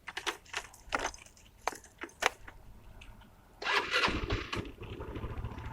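A few sharp clicks, then about three and a half seconds in the 150cc scooter's electric starter cranks and the engine catches and settles into running. This is a cold start on a newly fitted battery.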